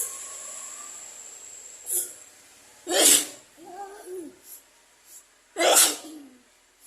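A person sneezing: a small sneeze about two seconds in, then two loud sneezes about three seconds in and again near six seconds. A short voiced sound follows the first loud one.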